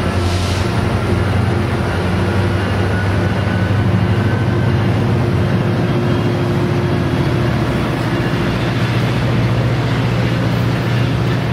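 Metrolink diesel-hauled commuter train moving through the station, its locomotive's engine running with a steady low drone under the rumble of the train. There is a brief hiss right at the start.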